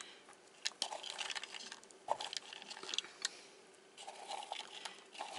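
Pecan halves poured from a can onto packed brown sugar and handled, giving scattered soft clicks and rustles as they land and are pushed into place.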